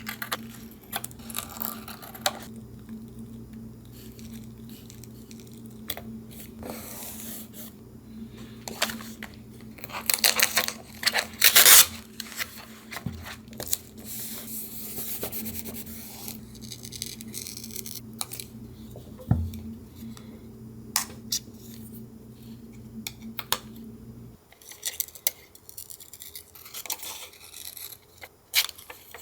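Paper collage crafting: paper rustling, tearing and rubbing, with small taps and clicks coming at irregular moments. A low steady hum sits underneath and stops about three-quarters of the way through.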